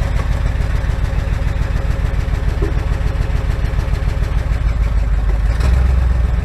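1979 Ford 400 V8 truck engine idling steadily just after starting on fresh oil. It is missing on the cylinders whose spark plug wires were left disconnected, running, in the owner's words, like a V6 or a 4-cylinder.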